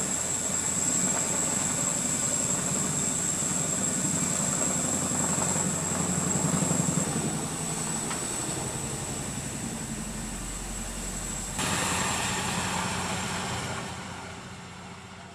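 CH-47F Chinook tandem-rotor helicopter running in flight: a steady rapid rotor beat under the high whine of its two Lycoming T55 turboshaft engines. The sound jumps louder and brighter about twelve seconds in, then fades away near the end.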